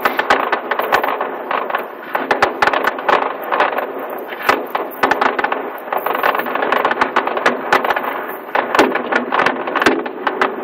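Aerial fireworks going off in a rapid, continuous run of bangs and crackles, with no pause between bursts.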